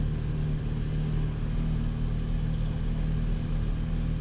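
Motor vehicle engine running at a steady speed, a low even hum with rumble.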